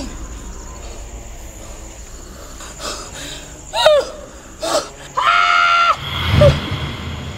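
A woman screaming: a falling shriek about four seconds in, a short cry, then a long, high, held scream and a lower cry near the end.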